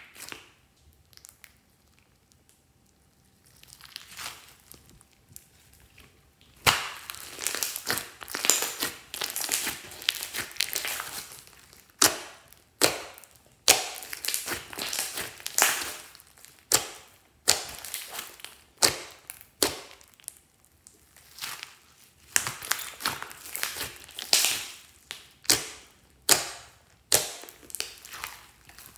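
Hands squeezing, folding and poking a large mass of slime with glitter and small beads mixed in, making wet crackling squishes and pops of trapped air. The first six seconds are mostly quiet, then the squishes come again and again, roughly one a second.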